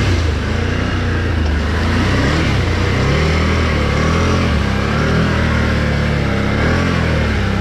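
Can-Am Renegade XMR 1000 ATV's V-twin engine running under load, its pitch rising and falling with the throttle as the quad ploughs through floodwater. Water splashes and sprays around the machine.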